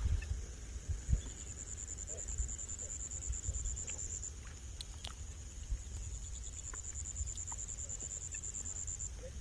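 A high-pitched insect trill, pulsing steadily, breaks off briefly about four seconds in and again near the end, over a low rumble.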